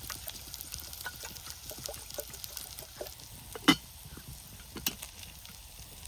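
Wood campfire crackling: many small irregular pops and ticks, with a sharper, louder crack a little past halfway and another shortly after.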